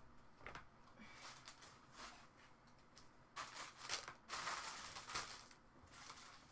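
Someone rummaging through a pile of things: intermittent rustling and crinkling, loudest for a couple of seconds about halfway through.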